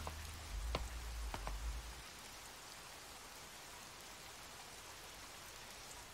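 Steady rain falling, an even soft hiss with a few sharp drips in the first couple of seconds. A low rumble fades out over the first two seconds.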